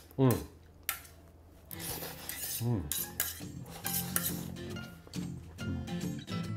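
Chopsticks clicking and scraping against a plate as food is eaten from it, in scattered short clicks. Faint background music comes in after about two seconds.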